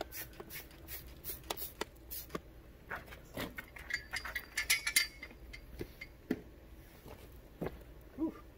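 Trigger spray bottle squirting water onto a plastic headlight lens in quick pumps, about three a second, for the first two seconds. Then clinks and knocks as the headlight is set down on a metal pipe stand, with a few scattered taps after.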